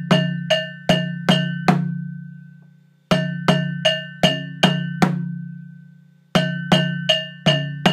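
Dundun drum and bell playing the kpanlogo bell pattern: runs of five or six even strikes, about two and a half a second, each with a ringing metallic tone over a low drum boom. A gap of about a second and a half falls between runs while the drum and bell ring on, and the pattern repeats three times.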